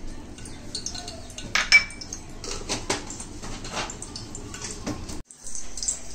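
Glass bowls clinking and knocking together as tamarind pulp is tipped and tapped out of a small glass bowl into a bowl of chutney. One sharp, ringing clink comes about one and a half seconds in, followed by several lighter knocks. Near the end a faint steady hiss sets in.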